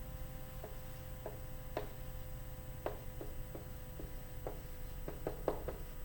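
A pen or marker tapping and scratching on a writing surface while a problem is written out: about a dozen light, irregular clicks, with a cluster of them near the end.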